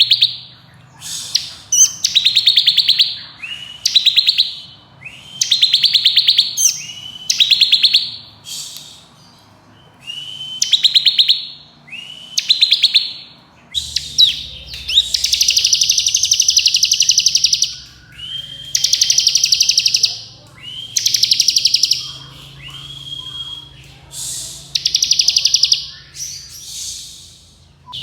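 Bar-winged prinia (ciblek kristal) singing its rapid buzzing 'ngebren' trill, repeated in phrases about a second long with short pauses between. About halfway through, the phrases become longer and louder.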